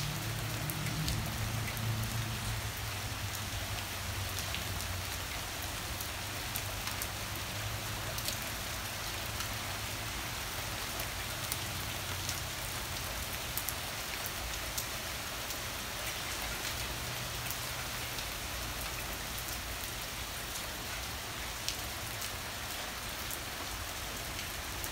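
Heavy rain pouring steadily onto a garden, lawn and paving, with scattered sharp drop ticks. A low rumble sits under it for the first few seconds.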